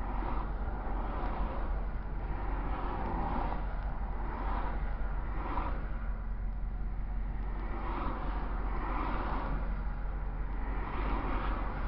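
Freeway traffic passing close by, each vehicle a rushing swell of tyre and wind noise every second or two, over a steady low hum.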